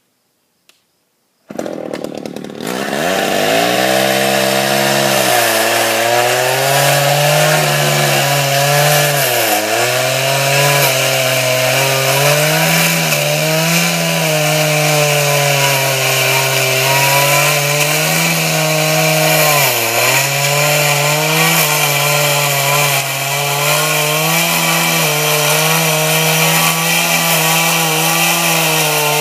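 Two-stroke chainsaw starting about a second and a half in, then running at high revs as its old, worn chain cuts a shallow trench through dirt and gravel. The engine's pitch dips several times as the chain bites into the ground.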